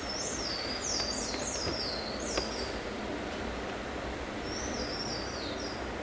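Bananaquit singing: a quick run of high, thin notes, each dropping in pitch, lasting about three seconds, then a shorter run near the end, over steady low background noise.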